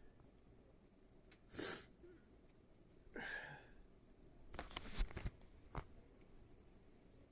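A person with a cold sniffing hard: one short, loud burst about a second and a half in, then a longer breathy sniff about three seconds in. A few sharp clicks follow about five seconds in.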